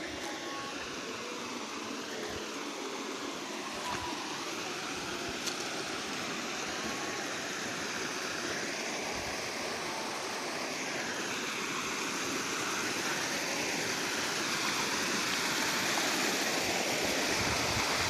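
Waterfall pouring into a rocky plunge pool: a steady rush of falling and churning water that grows gradually louder.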